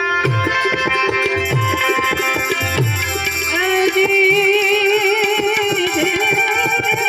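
Instrumental interlude of a Gujarati devotional bhajan: tabla strokes, the low drum's pitch sliding down on its strokes, over sustained harmonium chords. A wavering melody line comes in about three and a half seconds in.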